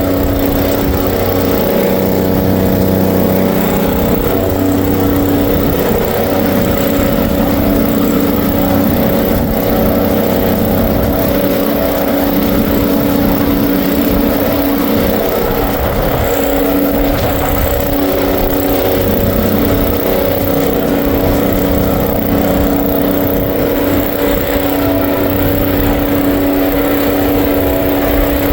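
Lawn mower engine running steadily under load, its pitch shifting a little as it works, with wind rumbling on the microphone.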